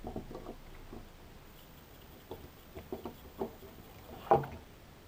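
Leatherman Wave multitool being handled as a small folding tool is pried out of it: light metal clicks and scrapes, with one louder click a little past four seconds in.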